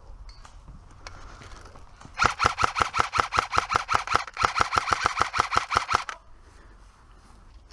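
Airsoft electric rifle firing on full auto: two bursts of about two seconds each, roughly seven to eight shots a second, starting about two seconds in.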